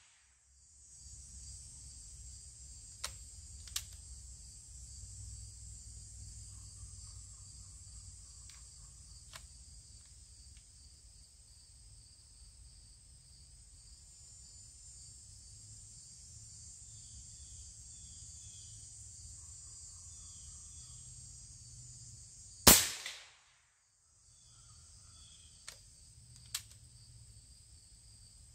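A big-bore PCP air rifle fires a 150-grain slug once, about three quarters of the way through: a single sharp report. A few light clicks come before and after it, over a steady high insect drone and short repeated chirps.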